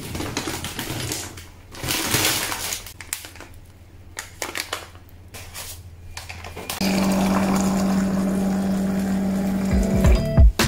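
A kitchen drawer pulled open and packaging rustled and handled, then about seven seconds in a countertop water dispenser starts, running steadily with a hum as its stream fills a glass.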